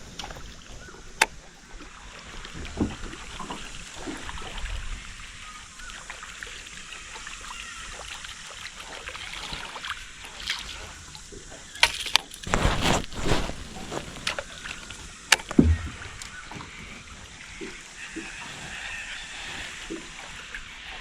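Water lapping and sloshing around a small boat on a river, with scattered knocks and clatter, loudest in a short run of knocks about twelve seconds in.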